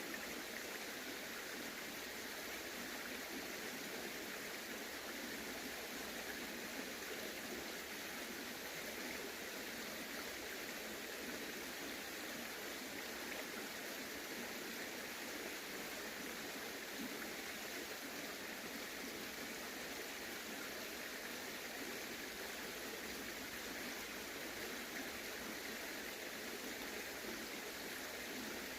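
Steady rush of flowing stream water, unchanging throughout.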